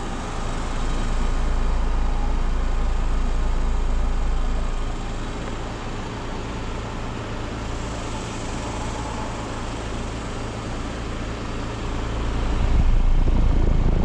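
Brand new 5-ton Trane XR13 central air conditioner condensing unit running just after startup: a steady compressor hum under the rushing air of its condenser fan. It grows louder near the end.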